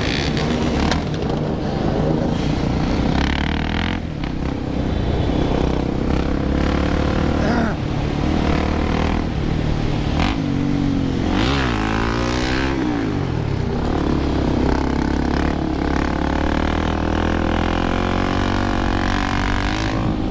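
A crowd of motorcycle engines running together, with bikes revving up and down; a cluster of rising and falling revs about eleven to thirteen seconds in stands out.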